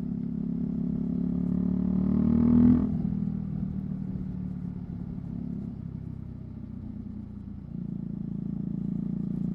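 Single-cylinder engine of a Husqvarna Svartpilen 401 through a Leovince LV-10 aftermarket exhaust. It pulls with the note rising for nearly three seconds, then the throttle shuts abruptly and the engine runs quieter. The note picks up again near the end.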